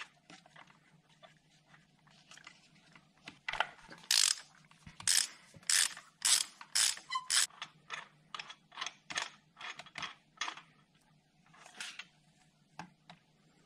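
Hand ratchet with a 16mm spark plug socket clicking in repeated strokes, about two a second, as a spark plug is unscrewed. The clicking slows to a few single clicks near the end.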